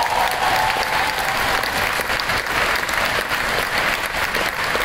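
Audience applauding steadily, with a whoop from one voice at the start.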